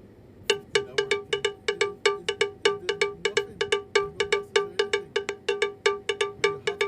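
Intro music: a quick run of struck, bell-like percussion notes, about four to five a second, mostly on one pitch.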